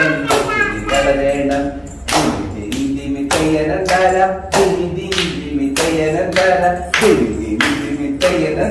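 A Malayalam lullaby being sung, with hand claps keeping a steady beat about twice a second.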